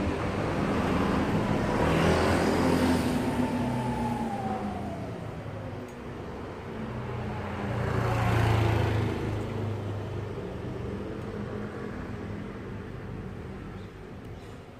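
Motor vehicles passing along a street: one goes by about two seconds in with a whine that falls in pitch as it passes, and another, louder, passes about eight seconds in; the traffic noise eases off near the end.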